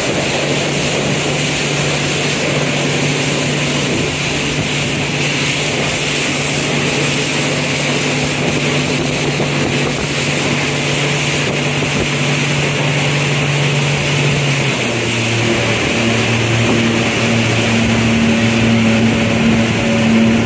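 Yamaha jet boat running under way: a steady engine and jet-drive drone over a rush of water and wind. The engine note shifts about fifteen seconds in.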